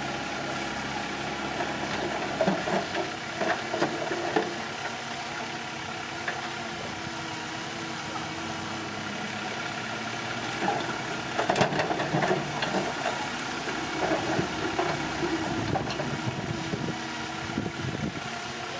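Engine of earthmoving machinery running steadily, with bursts of clattering about three seconds in and again from about eleven to fifteen seconds.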